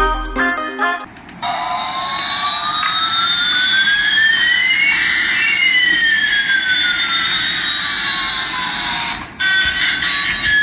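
Battery-powered toy Airbus A380 playing its electronic aeroplane sound effect through its small speaker. It is a hiss carrying one tone that slides up and another that slides down over about eight seconds, crossing halfway. It follows a second of music at the start, and near the end it gives way to a sound of several steady tones.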